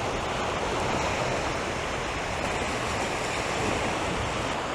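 Sea waves washing onto the beach: a steady rushing surf that swells a little about three and a half seconds in.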